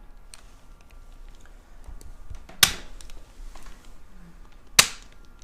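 Two sharp cracks about two seconds apart during a chiropractic adjustment of the upper neck at the C2 vertebra.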